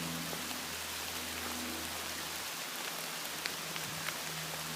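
Steady rain falling, an even hiss of rain on surfaces, with a few sharp drops ticking about three and a half and four seconds in. A faint low hum runs underneath.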